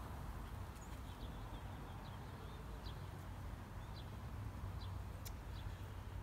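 Small birds chirping in the background, short high chirps about once a second, over a steady low rumble.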